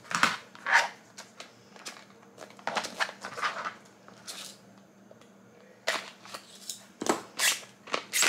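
A cardboard product box being opened by hand: the inner tray is slid and scraped out of its sleeve, with short rustles, scrapes and light knocks in several clusters.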